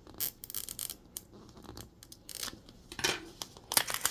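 Small plastic wrapper bags being crinkled and torn open by hand, in irregular short bursts of rustling, the loudest just before the end.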